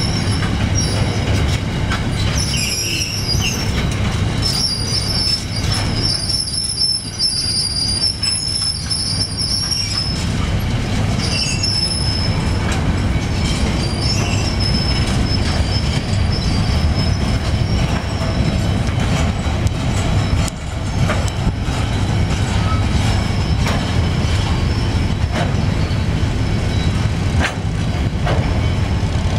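A freight train's empty flat wagons rolling past close by: a steady low rumble of steel wheels on rail. High-pitched wheel squeal comes from about one to twelve seconds in, and scattered clicks follow later.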